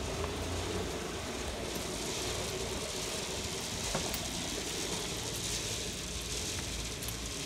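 Zipline trolley rolling along the steel cable: a steady whirring hiss with a low rumble of wind on the microphone.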